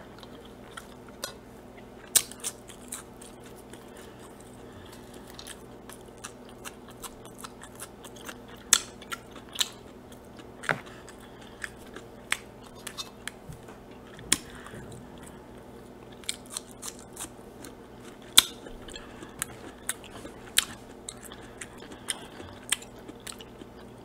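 Close-miked eating: a person chewing and biting into a burger and french fries, with sharp crisp clicks at irregular intervals. A faint steady low hum runs underneath.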